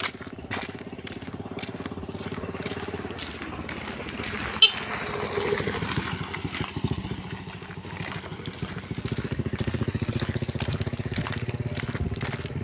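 Small motorcycle engine running while riding a rough dirt road, its rapid even pulsing growing louder in the second half. A single sharp knock sounds about four and a half seconds in.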